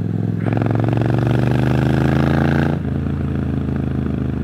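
2019 Triumph Street Scrambler's 900 cc parallel-twin running through a Zard slip-on exhaust while riding. The engine note picks up about half a second in, pulls strongly for a couple of seconds, then drops back a little under three seconds in.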